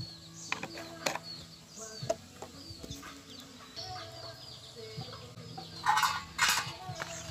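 Chickens clucking, with small birds chirping high and faint throughout. Water and wet glutinous rice are handled in a plastic basin: a few light knocks, then two short splashy bursts about six seconds in, the loudest sounds here.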